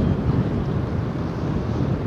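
Whooshing rush of the 24x8 two-blade propeller on an electric-powered giant-scale RC P-51D Mustang in flight, with no engine sound, mixed with wind buffeting the microphone.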